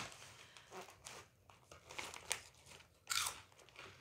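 A person crunching and chewing nacho-style corn chips: a series of short, crisp crunches, the loudest a little after three seconds in.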